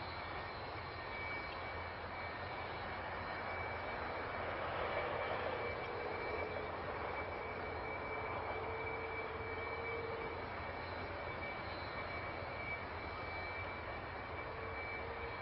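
Steady jet aircraft engine noise: a constant rush with a faint whine that swells and shifts in pitch a few seconds in and again near the end.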